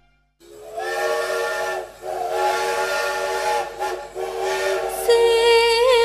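Steam locomotive whistle used as a sound effect: held, chord-like whistle blasts with steam hiss, about three of them. About five seconds in, a wavering melodic line of music comes in.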